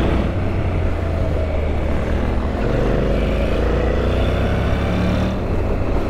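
Honda NC750X parallel-twin motorcycle engine running at road speed under steady wind and road noise, its note wavering a little with the throttle.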